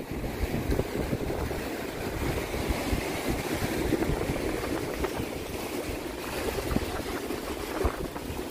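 Wind buffeting the microphone over the wash of waves breaking on the shore, a steady rushing noise with a fluctuating low rumble.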